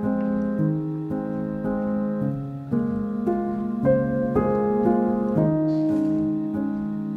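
Background piano music, a slow melody of sustained notes changing about every half second.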